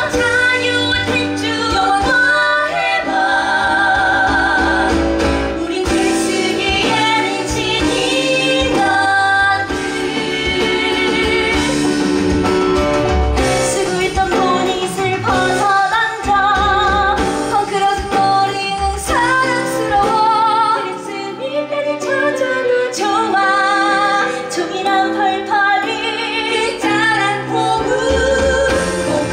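Women singing a musical-theatre song with instrumental accompaniment, the voices held on long notes with vibrato.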